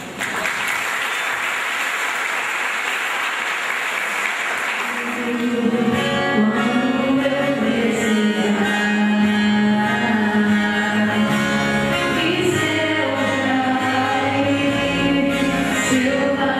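Applause for about five seconds, then acoustic guitars and a woman singing into a microphone start a song.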